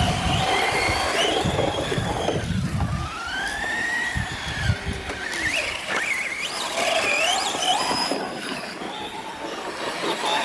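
Several radio-controlled trophy trucks racing on a dirt track, their motors whining in rising and falling pitch as they speed up and slow down.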